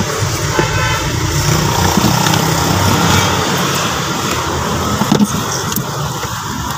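Steady low rumble of a motor vehicle engine running, with a few short clicks about five seconds in.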